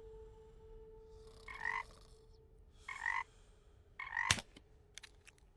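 A frog croaking three times, short evenly spaced croaks about a second and a half apart. A sharp click follows just after the third croak, then a few faint ticks.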